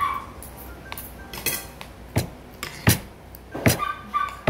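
Spoon and fork clinking and scraping against a plate during eating, a series of sharp clinks under a second apart. A short high-pitched whine comes near the start and again near the end.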